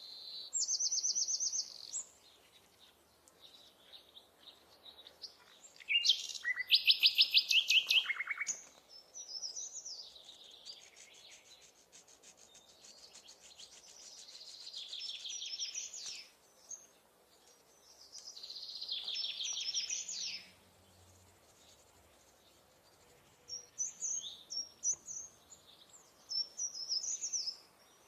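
Songbirds singing: a series of high trilled phrases and chirps with pauses between them. The loudest is a trill about six seconds in that steps down in pitch over about two seconds.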